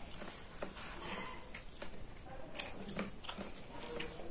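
A child eating rice and chicken by hand: faint chewing and mouth noises with scattered sharp clicks, the loudest about two and a half seconds in.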